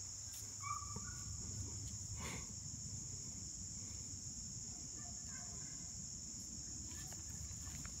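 Steady high-pitched insect chorus, with a few faint short chirps about a second in.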